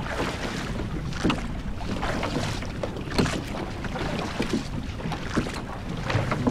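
Water splashing and slapping against a small rowboat in choppy water, in repeated uneven splashes, with wind on the microphone.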